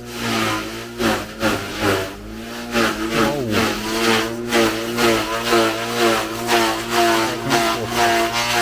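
Motor-driven garden shredder running, chopping grass for compost. Its steady machine note wavers in pitch, and the rough chopping noise swells about twice a second.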